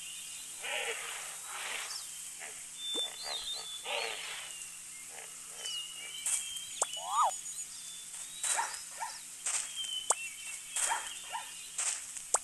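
Animal calls: many short chirps and whistles, with several rougher, noisy calls in between.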